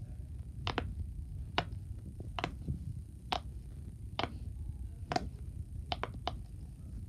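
Silicone pop-it fidget toy's bubbles being pressed through one by one, each giving a sharp pop, about one a second with a few quick doubles, over a low steady rumble.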